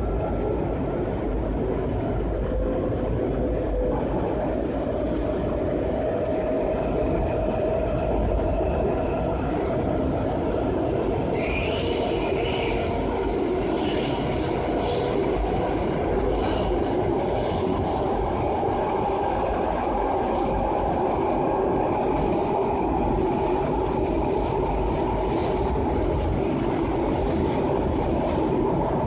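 Metro railcar running, heard from inside the car: a steady, dense rumble. A high squeal joins about eleven seconds in and lingers on and off.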